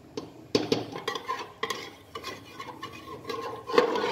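Metal ladle stirring thin egg and potato curry in an aluminium pressure cooker, clinking and scraping against the pot's side in a string of irregular knocks, the loudest near the end.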